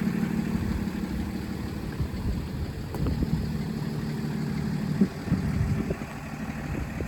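Diesel truck engine idling steadily, with a single sharp knock about five seconds in.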